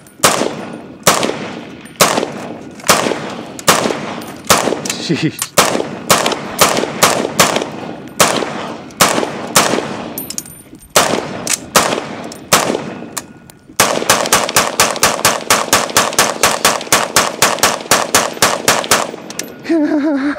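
Gunfire at a rifle range: loud single shots about two a second with some irregular gaps, then about fourteen seconds in a fast string of shots, several a second, for about five seconds.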